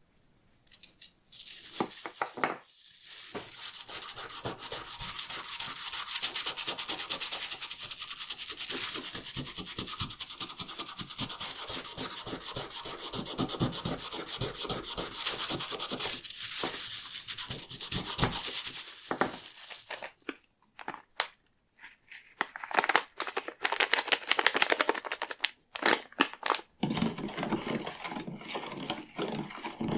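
Fast, continuous hand scrubbing strokes on the belt. After about twenty seconds it breaks into shorter scrubbing bursts with brief pauses.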